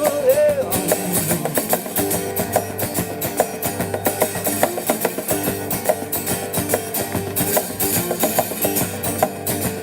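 Instrumental break of a rock-blues duo: a guitar riff over steady percussion, after the last sung note fades out within the first second.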